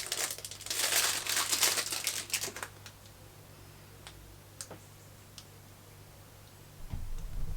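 Plastic packaging crinkling and rustling as it is handled, for about two and a half seconds, then a few faint, separate clicks.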